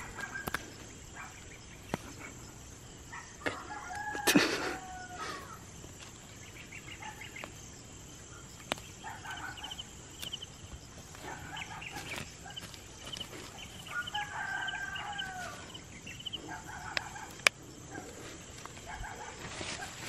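Chickens in the background, with a rooster crowing several times, along with a few soft clicks.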